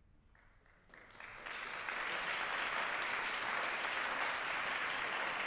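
Audience applauding: a few scattered claps about half a second in, quickly swelling into full, steady applause.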